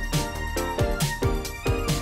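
Music with a steady beat: a kick drum about twice a second, with cymbal hits and held pitched notes over it.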